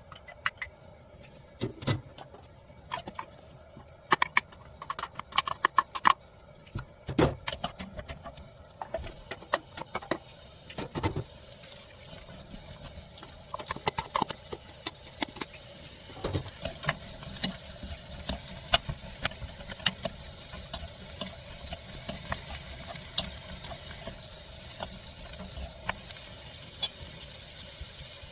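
Vegetables being stir-fried in a frying pan, with a spatula knocking and scraping against the pan. A sizzle builds up about halfway through and grows steadily louder.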